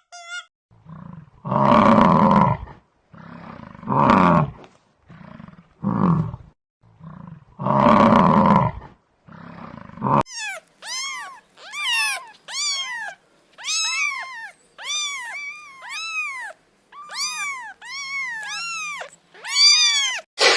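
Animal calls: several rough, loud roaring calls about two seconds apart, then, after an abrupt change about halfway, a rapid series of short high calls that rise and fall in pitch.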